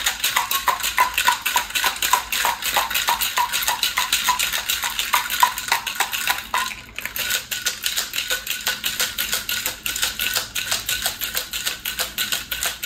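Ice cubes rattling inside a metal cocktail shaker shaken hard by hand, a fast, even clatter. There is one brief break just before seven seconds in, then the shaking resumes.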